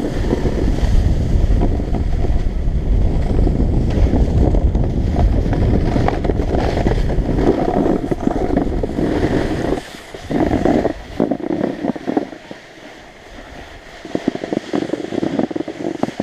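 Wind rushing over a body-mounted camera's microphone and skis scraping and rumbling over packed, chopped-up snow while skiing downhill. About ten seconds in the rushing drops away, leaving quieter, uneven scraping of the skis.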